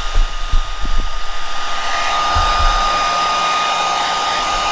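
Electric heat gun blowing steadily, with a hiss of air and a steady whine, heating heat-shrink tubing on a wire splice; a few low bumps in the first second.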